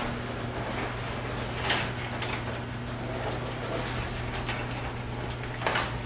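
Sectional garage door rolling open on its tracks, rattling now and then over a steady hum.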